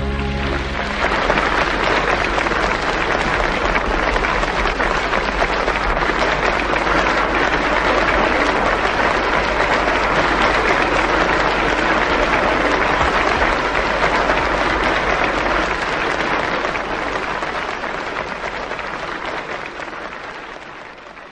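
Audience applauding after a song ends, the last of the music dying away in the first second. The applause holds steady, then fades out near the end.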